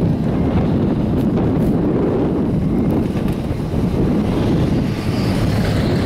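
Strong wind buffeting the microphone on an open chairlift, a steady low rush of noise.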